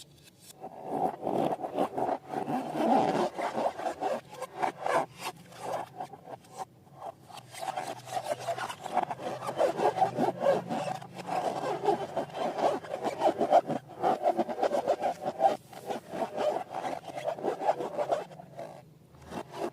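Rubber balloons rubbed and squeezed by hand, making a rapid, continuous rubbing squeak with small clicks, easing off briefly near the end.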